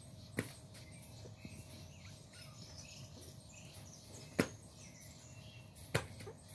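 Faint outdoor background with birds chirping faintly and three sharp clicks, one near the start and two in the second half, while kittens play-fight in the grass.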